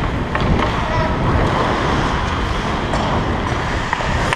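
Wind buffeting a helmet-mounted camera's microphone as the wearer skates in an ice hockey game. A few sharp clicks and knocks from sticks and puck on the ice come through it.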